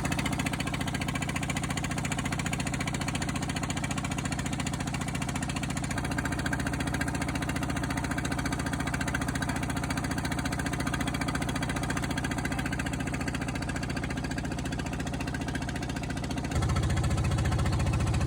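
Small boat engine running steadily with an even pulsing beat, getting louder about sixteen and a half seconds in.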